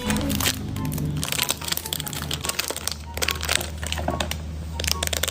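Plastic packaging crinkling and crackling in short handling noises as it is unwrapped, over background music with a steady bass.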